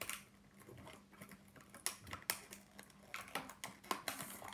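Toy box packaging, clear plastic and cardboard, being pulled and torn apart by hand: irregular sharp clicks and crackles, coming thicker near the end.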